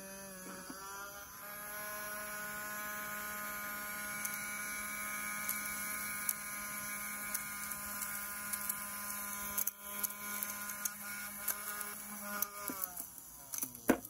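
Small battery-powered DC motor of a homemade 3D-printed handheld vacuum running with a steady hum, then winding down about thirteen seconds in. A few sharp clicks follow near the end as the unit is handled.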